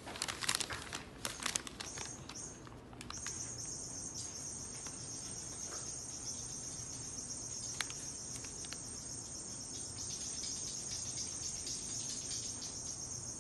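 A few soft clicks and rustles over the first three seconds, then a steady, quiet, high-pitched hiss.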